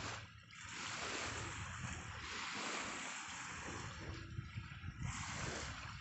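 Small sea waves washing and breaking in the shallows, a steady rushing that swells and eases every second or two, with wind rumbling on the microphone.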